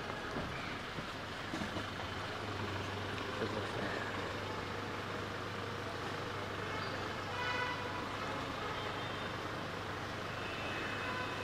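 Idling car engine humming steadily under street background noise, with a brief high-pitched tone about seven seconds in.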